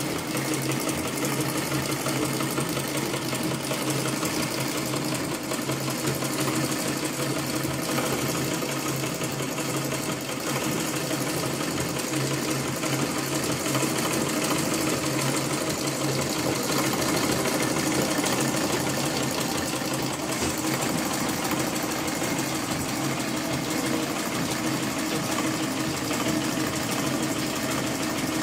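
Butterfly treadle sewing machine running steadily under foot power, its needle bar and balance wheel turning with a fast, even mechanical clatter. It is running empty, with no fabric under the needle.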